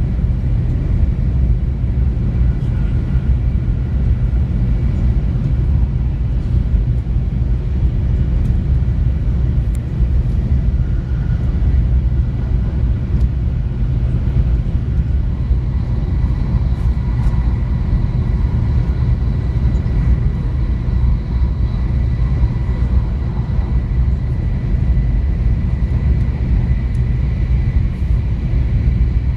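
Steady low rumble, with a faint steady high whine beneath it.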